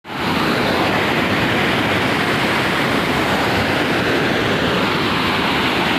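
Waterfall: the steady rush of falling water, loud and unbroken.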